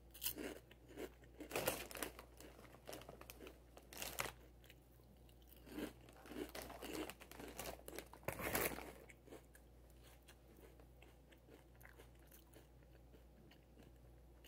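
A mouthful of Doritos 3D Crunch Spicy Ranch chips being bitten and chewed: irregular crisp crunches for about nine seconds, then dying down to faint chewing.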